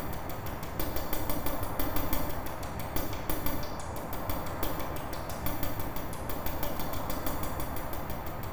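Steady background noise of a large convention hall, a continuous low rumble and hubbub with no distinct voices or events.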